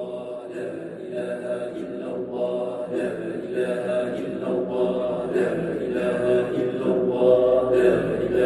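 Droning, mantra-like chanting by voice, continuous and growing gradually louder.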